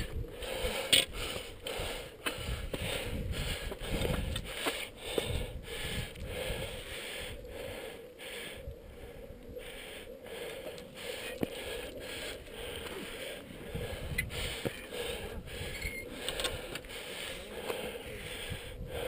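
A climber's heavy breathing mixed with clicks, rattles and scuffs from hands, shoes and gear working up steel hand cables, in quick, irregular strokes.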